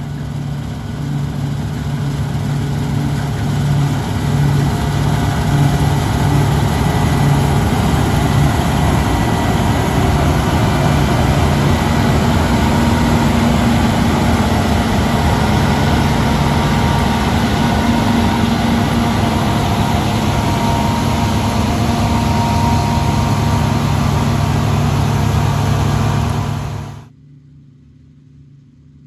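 Engine of heavy harvest machinery running steadily under load, a loud, even mechanical din with a deep hum. It cuts off abruptly near the end, leaving a much fainter hum.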